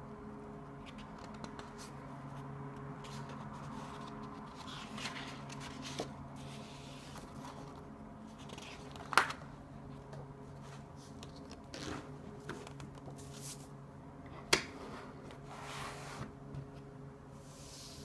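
Paper and small desk items being handled: soft rustling and scattered light clicks, with two sharp taps, one about halfway through and one about three-quarters through, over a steady low hum.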